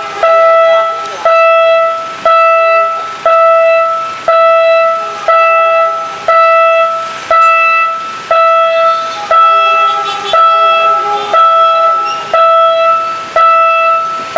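Railway level-crossing warning bell ringing about once a second, each ring fading before the next, signalling an approaching train while the crossing barriers are down.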